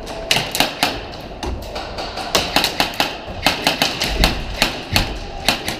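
Airsoft guns firing semi-automatic: many sharp, irregular snapping shots, several in quick runs, with a few low thuds among them.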